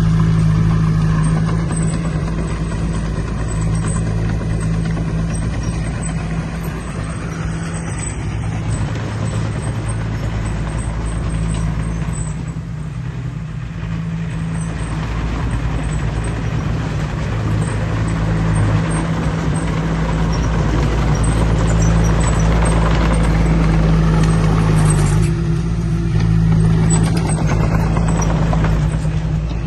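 Diesel engine of heavy earthmoving machinery running steadily, with a slight change in its note near the end.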